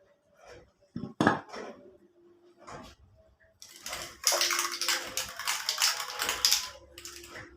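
Small metal parts clicking and knocking together, then about three and a half seconds of loud hissing spray, such as aerosol cleaner or compressed air, during the starter solenoid's repair.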